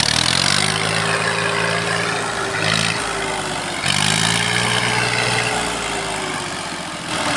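Massey Ferguson 240 tractor's three-cylinder diesel engine running, heard close by, with a pitched engine note that comes in twice for about three seconds each over a steady drone.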